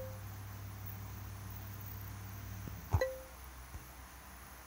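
Drops language app's sound effect as a letter tile snaps into the spelling answer box: one short click with a brief ringing tone, about three seconds in. A faint low hum sits under the first part.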